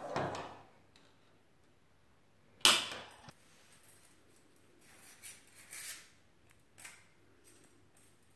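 Tin snips cutting through a perforated metal strap: a rough crunching cut at the start and one loud sharp snap about two and a half seconds in, followed by lighter metallic clicks and clinks of the small cut pieces being handled.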